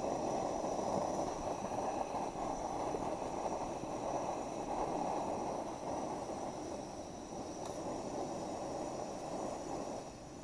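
A pan of spicy broth boiling on a portable gas-canister stove: a steady noise that grows fainter near the end.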